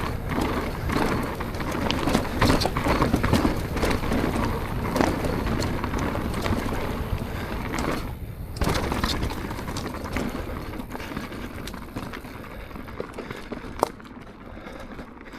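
Propain Tyee mountain bike descending a dirt trail: tyres rolling over rough ground with a steady stream of rattles and clicks from the chain and frame, and wind on the microphone. A short lull about eight seconds in ends with a knock, and the noise eases off near the end.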